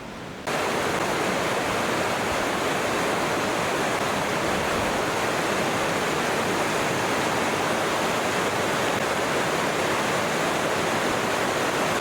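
Kings Creek Falls: steady, loud rushing of falling water, cutting in suddenly about half a second in.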